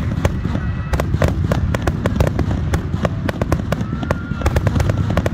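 Aerial fireworks display: a rapid barrage of shell bursts and crackling bangs, several a second, over a continuous low rumble.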